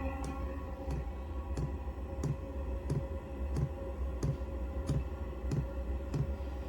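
All-in-one diesel heater running: its fuel dosing pump ticks about one and a half times a second over a steady low rumble of combustion and the hum of the blower fan.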